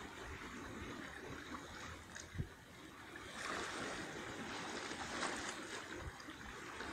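Running water of a shallow stream, a steady rushing hiss that grows a little louder about halfway through, with one soft low thump near the middle.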